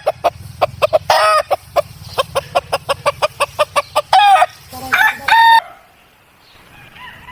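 Hens clucking: a rapid run of short clucks broken by a few longer, drawn-out squawks, fading to faint sound after about five and a half seconds.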